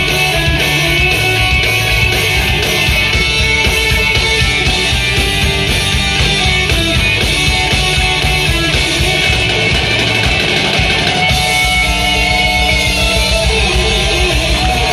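Live rock band playing loud through the PA, with electric guitars, bass and drum kit; the arrangement changes about eleven seconds in.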